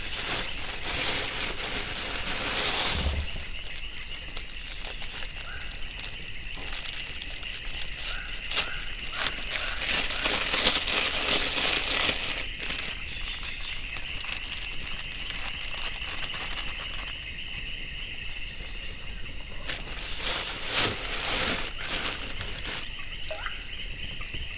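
Night insects chirping steadily in regular, evenly spaced high pulses over a continuous shrill drone, with brief stretches of broader rustling noise at times.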